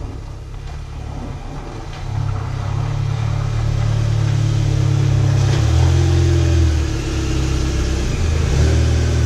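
A 2008 Volkswagen GTI (MkV), with its 2.0-litre turbocharged four-cylinder engine, pulls slowly into a garage at low engine speed. The engine gets louder about two seconds in as the car comes closer, and its note drops a little lower past the middle.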